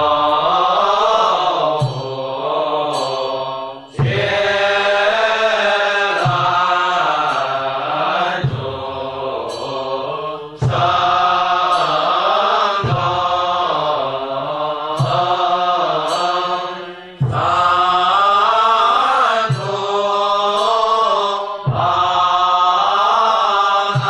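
Chinese Buddhist monks chanting the temple morning service, a slow melodic chant sung in phrases of a few seconds, each broken by a short pause for breath.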